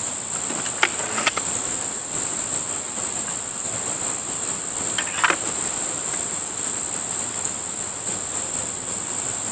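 Steady high-pitched drone of insects in a summer chorus, with a few faint clicks about a second in and again about five seconds in as a break-barrel air rifle is handled, cocked and loaded.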